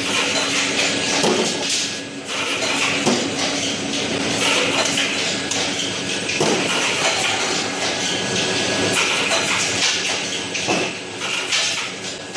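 Automatic bottle capping machine and conveyor of a capsule packing line running, plastic bottles clattering along: a continuous rattle of quick clicks and knocks over a steady mechanical hum.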